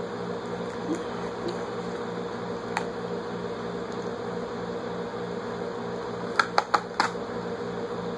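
Steady low hum of room noise, with a few scattered sharp clicks and taps and a quick run of four clicks about six to seven seconds in.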